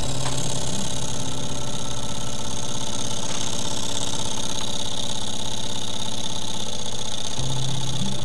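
Small model Stirling engine running steadily on a tealight's heat, its flywheel and linkage making a rapid, even mechanical ticking.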